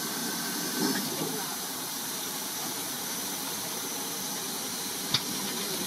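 Steady hiss of steam escaping around the front end of the GWR 2-6-2T prairie tank locomotive 4555, with a single sharp click about five seconds in.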